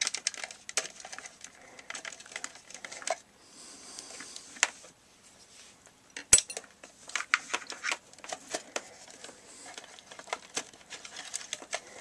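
Scattered clicks, taps and light rattles as the Sony XDR-S3HD radio's internal chassis and wiring are worked out of the wooden cabinet, with a short scraping sound around three to four seconds in and one sharp click about six seconds in.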